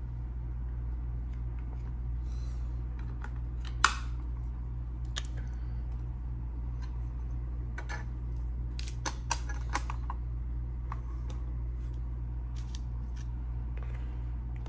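Trading cards and rigid clear plastic card holders handled on a tabletop: light plastic clicks and taps, a sharper click about four seconds in and a cluster of clicks around nine to ten seconds, over a steady low hum.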